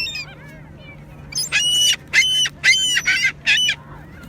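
Seagulls calling: a run of about five short, loud calls in quick succession starting about a second and a half in, after a single short call at the start.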